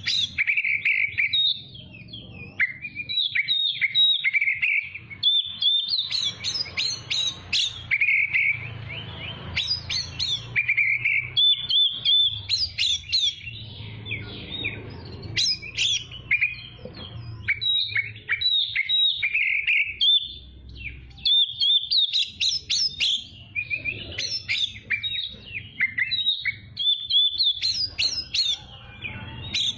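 Oriental magpie-robin (kacer) singing continuously, a rapid run of varied whistles, trills and sharp chirps with brief pauses between phrases, over a faint low hum.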